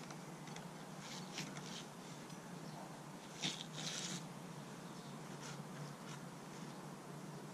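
Quiet background with a steady low hum, faint scuffs and small ticks, and a short scrape and rustle about three and a half seconds in as a long-handled pickaxe is lifted and held ready.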